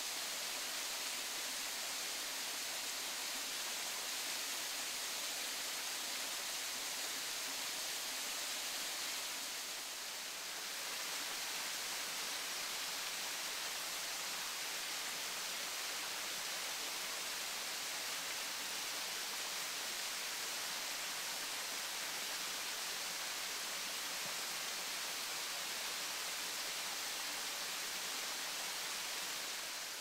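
Waterfall running full down a steep rock face: a steady, even rush of falling water, dipping slightly for a moment about ten seconds in.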